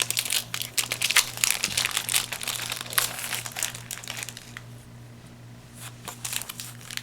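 Foil Yu-Gi-Oh booster pack wrapper being crinkled and opened by hand, a dense run of crackling that eases off about five seconds in and picks up again near the end.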